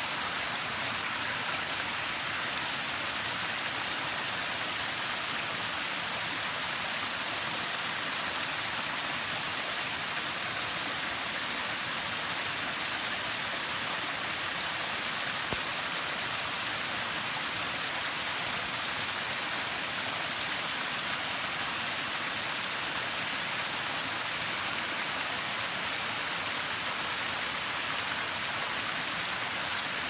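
Small waterfall splashing down a narrow channel of mossy rock: a steady rushing hiss of falling water.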